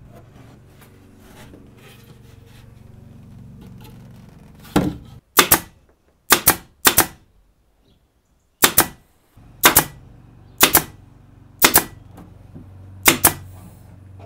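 Air-powered pin nailer firing 0.6 mm pins into a plywood cabinet panel: about nine sharp shots, roughly one a second, starting about five seconds in with a short pause partway through.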